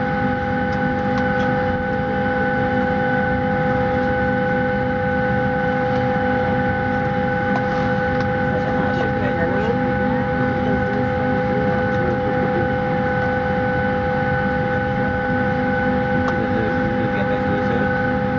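Steady aircraft cabin noise inside a Ryanair Boeing 737 on the ground: a constant multi-tone whine over a low rumble, holding level without spooling up or down. Faint voices come through in the middle.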